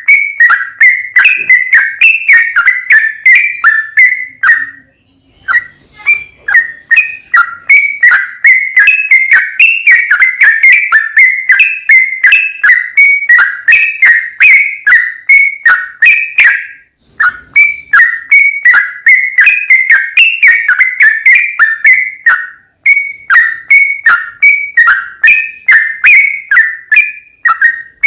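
Yellow-vented bulbul (trucukan) song: a long, fast run of short bubbling chirps, about three or four a second. The song breaks off briefly three times, about 5, 17 and 22 seconds in.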